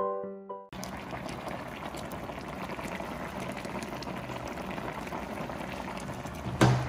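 Steady rushing, bubbling water noise, with a short sharp thump near the end.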